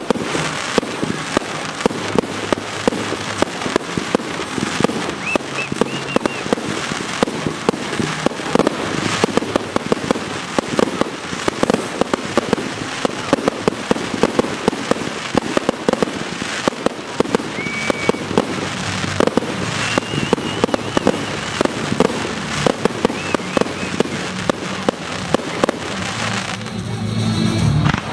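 Fireworks going off in a dense, rapid crackle of many small pops and bangs, thinning out near the end.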